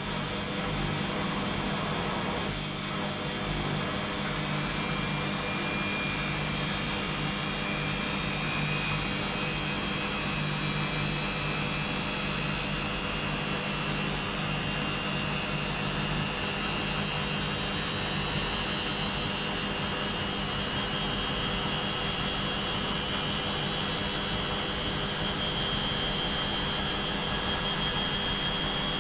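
Washing machine in its spin cycle: a steady motor and drum whirr with a high whine that rises slowly in pitch as the drum speeds up.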